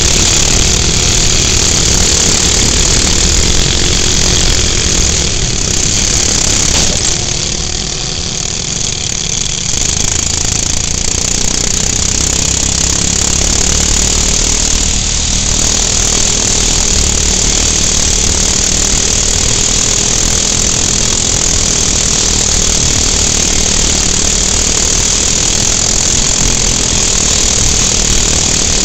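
Off-road racing kart's 6.5 hp single-cylinder four-stroke engine running hard close to the microphone. The level drops briefly about eight seconds in, then comes back up and holds steady.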